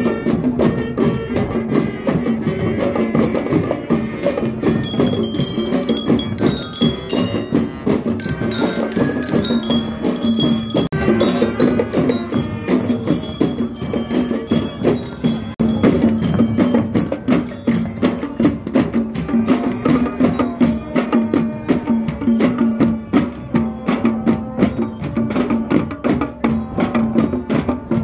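Marching band playing: bell lyres ring out the melody over saxophones and trombones, with a steady beat of snare and bass drums. The bell notes stand out most clearly about five to eleven seconds in.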